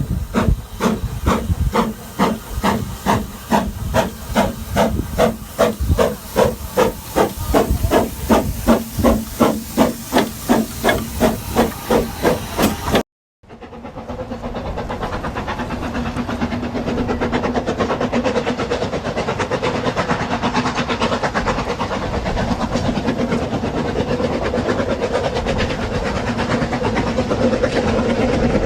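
Narrow-gauge steam locomotive exhaust chuffing in a steady rhythm of about two to three beats a second. After an abrupt cut about 13 seconds in, a steady loud hiss of escaping steam follows, with a faint low hum in it.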